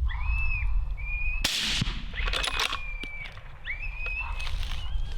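A series of about five high, drawn-out coyote-like howl calls, each sliding up and then held, with a sharp crack about a second and a half in.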